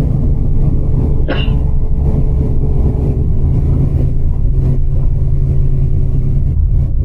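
Steady low rumble of a moving coach bus heard inside the cabin: engine and road noise. A brief sharp click or squeak about a second in.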